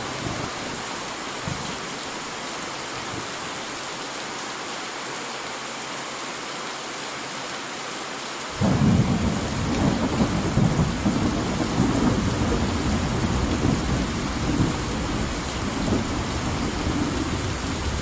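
Steady rain hiss; about eight and a half seconds in, a deep rumble of thunder starts suddenly and keeps rolling under the rain.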